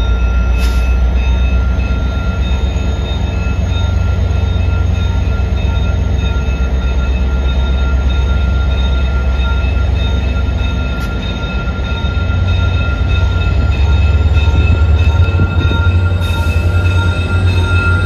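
A VIA Rail EMD F40PH-2 diesel locomotive pulling its train out of a station under power, with a deep engine rumble and a faint high whine that rises slowly. The rumble grows louder as the locomotive draws up and passes close by near the end.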